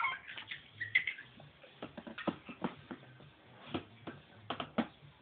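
Irregular light clicks and knocks of small plastic things being handled by toddlers, with a brief high squeak about a second in.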